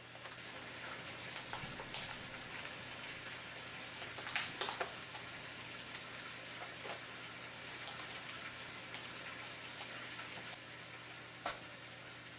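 Chicken pieces sizzling as they brown in olive oil and butter in a pan: a steady crackle with scattered pops, and a few louder clicks about four seconds in and near the end.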